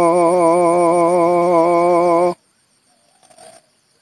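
A man singing unaccompanied, holding the last drawn-out note of a line of a campursari song with a gentle vibrato. The note cuts off about two seconds in, leaving only a few faint soft ticks.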